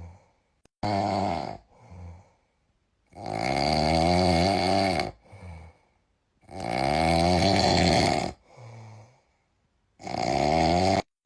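Capybara snoring in its sleep: four loud snores, the middle two about two seconds long, each followed by a short, softer breath.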